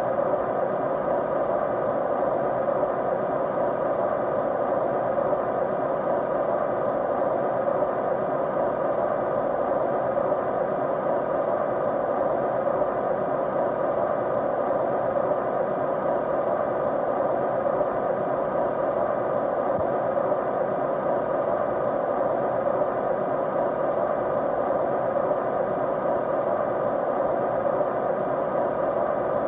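An electric fan running steadily: an even whooshing noise with a faint steady hum in it, with no change in speed or level.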